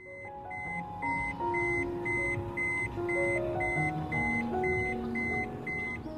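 Background music: a melody of held notes, with a short high beep-like note repeating steadily about twice a second.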